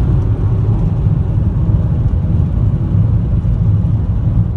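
Steady road and engine noise inside a car's cabin while it drives on a highway: a low, even rumble with no distinct events.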